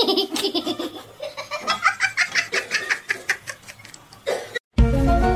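A person laughing in a quick run of short bursts for about four seconds. It cuts off near the end, and music with steady held notes starts.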